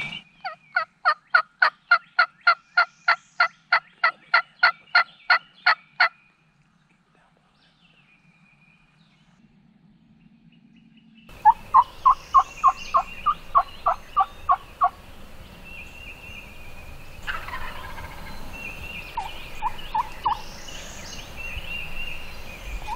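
Turkey yelping: a long, evenly paced series of yelps, about three or four a second, for about six seconds. A few seconds of near quiet follow, then a shorter series of about ten yelps, and three more yelps near the end.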